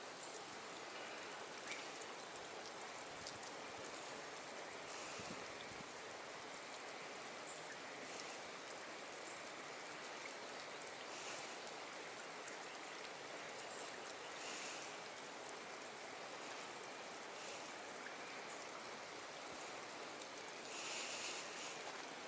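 A steady, even hiss of water around a rocky pool, with a few faint, brief higher sounds over it.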